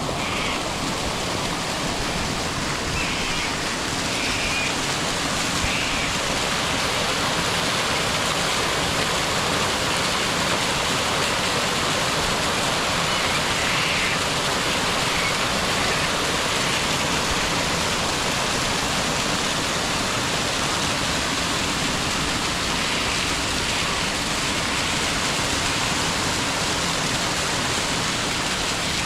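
Steady rain falling, a dense even hiss that does not let up.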